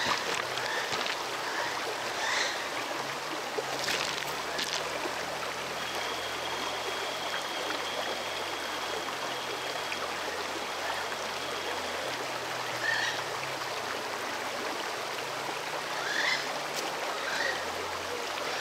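Shallow rocky stream running over stones, a steady babbling rush of water, with scattered short chirps above it.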